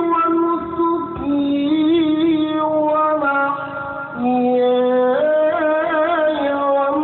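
Male qari reciting the Qur'an in melodic tilawah style. A single voice draws out long, ornamented notes with wavering pitch, stepping between held tones, with a short break about four seconds in.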